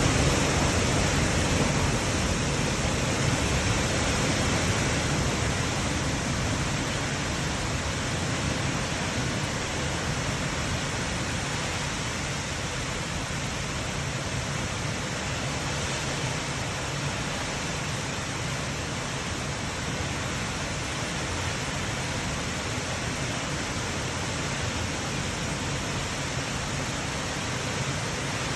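Heavy rain in a cyclonic storm, a steady rushing noise that eases slightly over the first ten seconds or so.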